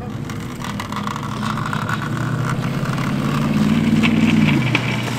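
Motor vehicle engine running and accelerating, its pitch rising gradually for a few seconds, then dropping about four and a half seconds in as it eases off.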